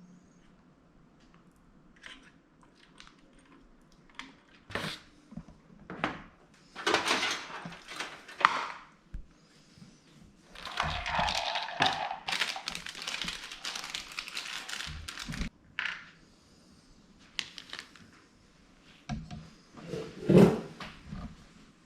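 Computer parts and plastic packaging being handled: crinkling rustles, twice for a few seconds, among scattered small clicks and knocks of hardware being picked up and set down.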